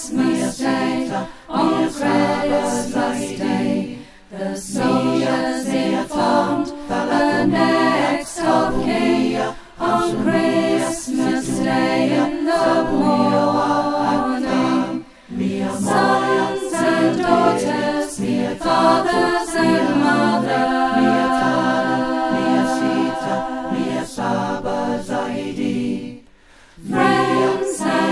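Unaccompanied choir singing, with brief pauses a few seconds in, about halfway, and near the end.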